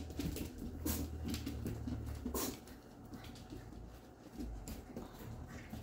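Goldendoodle puppies' paws and claws pattering and clicking on a hard floor as they scamper around, with a couple of sharper clicks.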